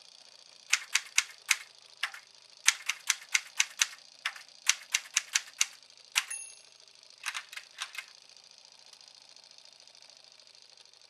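Manual typewriter keys striking the paper in quick runs of a few strokes each, with one short bell-like ding about six seconds in. A few more strokes follow, and the typing stops about eight seconds in.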